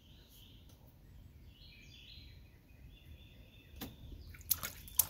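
Faint birds chirping, then from about four and a half seconds in a baby's hands slapping and splashing the water of a small inflatable kiddie pool; the splashes are the loudest sounds.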